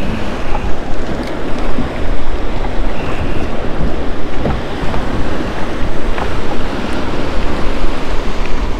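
Rough, choppy sea water washing and breaking around the boat and the jetty rocks, with wind buffeting the microphone in a steady, loud rushing noise.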